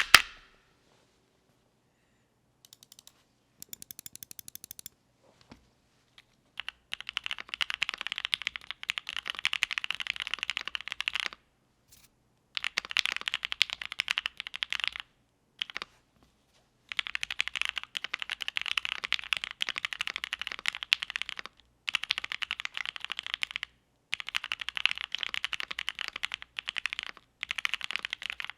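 Mechanical keyboard with Gateron Oil King linear switches, a polycarbonate plate and GMK keycaps being typed on quickly, in runs of several seconds broken by short pauses. A single sharp click comes at the very start, and the typing begins about six seconds in.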